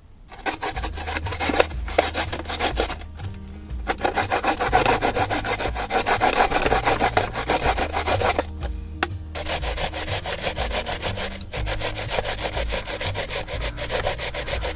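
Daikon radish being grated on a hand grater into its catch box: rapid back-and-forth rasping strokes, pausing briefly a few times, as the radish is worked into grated daikon (daikon oroshi).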